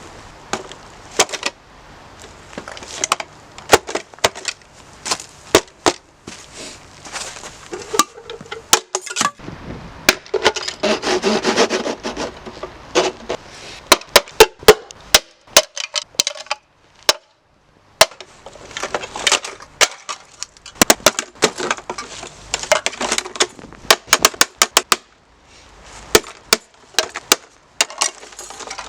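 A coffee machine being smashed: many sharp blows, often in quick runs, with a denser stretch of crashing and clattering about ten seconds in and a brief pause around seventeen seconds.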